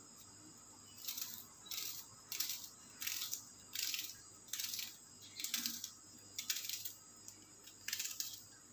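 Kitchen knife slicing a red onion held in the hand, about nine short crisp cutting strokes, roughly one every three-quarters of a second.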